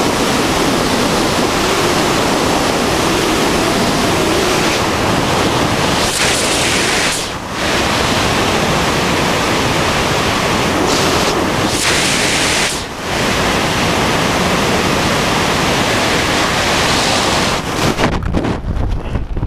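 Freefall wind rushing over a skydiver's camera microphone: a steady, loud roar that dips briefly twice. About eighteen seconds in, the hiss falls away to lower, gustier buffeting as the parachute opens and the fall slows.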